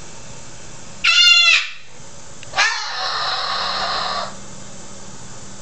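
Cockatoo screaming: a loud, short pitched scream about a second in, then a longer, harsher screech lasting nearly two seconds.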